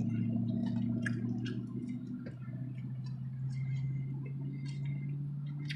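Someone eating a chicken wing off the bone: scattered small clicks and wet mouth sounds, over a steady low hum.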